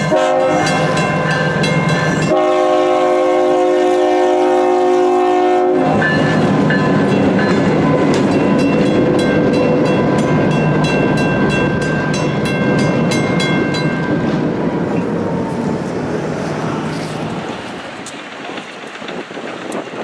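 Diesel switcher locomotive sounding its horn for about the first six seconds, the chord changing a couple of seconds in. Its engine and wheels then rumble and clatter past on the rails, fading away near the end.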